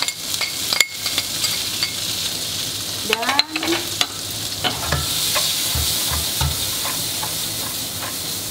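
Beef and freshly added vegetables sizzling in olive oil and butter in a frying pan on a gas burner, with clicks and knocks from a spatula stirring the pan. A short rising squeak about three seconds in, and the sizzle grows louder from about five seconds in.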